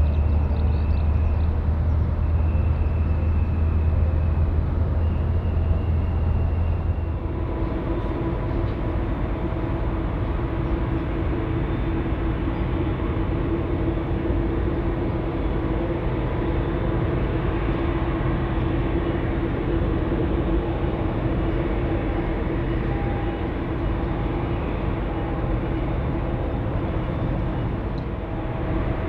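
Jet airliner engines idling on the ground, a steady rumble with several hum tones. About seven seconds in the deep hum drops away and a higher hum takes over.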